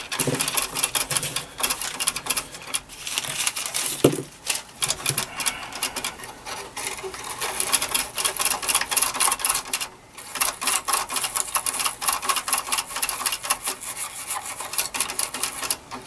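A small brush scrubbing fast over the contacts of a ceramic wafer switch, a dense dry scratching with short pauses, cleaning oxidation off the contacts with DeoxIT contact cleaner.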